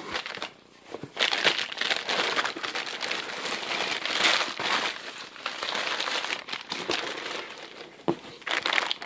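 Crumpled packing paper crinkling and rustling as it is pulled by hand out of a cardboard box, starting about a second in, with a light knock near the end.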